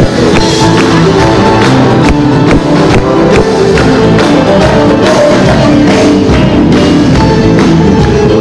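Live band playing loud music with a steady beat: piano, electric guitar and drums.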